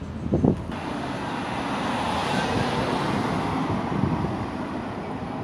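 A road vehicle passing close by, its tyre and engine noise swelling over a couple of seconds and then fading away. A short knock comes just before it.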